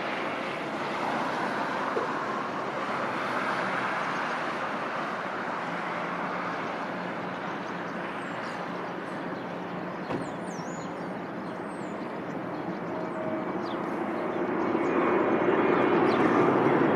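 Jet noise from a Boeing 777-300ER's two GE90-115B turbofans on final approach: a steady rush that grows louder in the last few seconds as the airliner nears touchdown.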